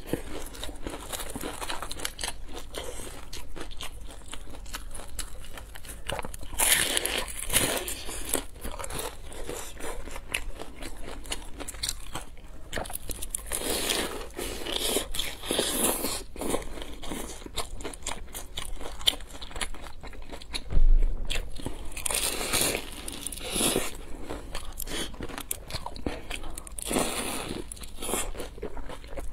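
Close-up crunching and chewing of deep-fried vegetable pockets (cai hezi) with crisp pastry shells: repeated crackly bites and chewing, in louder bursts every several seconds. There is one low thump about two-thirds of the way through.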